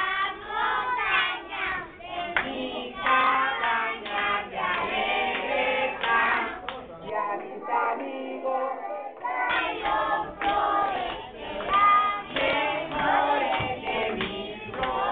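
A group of preschool children singing a Christmas chorus together.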